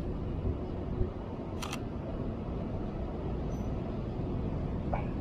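Sony A7R III camera shutter firing once, a quick double click about a second and a half in, over steady low traffic noise.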